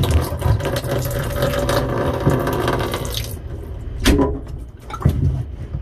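Residual water pouring out of a just-cut PEX supply line into a plastic tub, running for about three seconds and then stopping, followed by two brief knocks.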